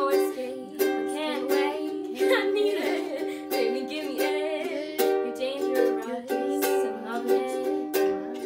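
Ukulele strummed in repeated chords, with a girl's voice singing along over it.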